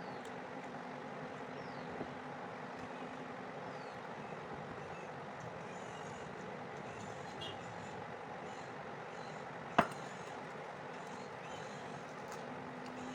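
A steady low hum with faint high chirps above it, and one sharp click about ten seconds in.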